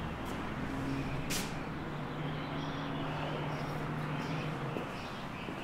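Street traffic, with a vehicle engine running with a steady low hum that shifts pitch about two seconds in. A single sharp click comes about a second in.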